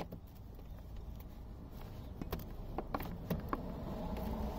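Sharp plastic clicks and taps from a screwdriver working keyed push clips out of a car's plastic wheel-arch liner, mixed with phone-handling noise. There is one click at the start, then a quick run of about five clicks between two and three and a half seconds in.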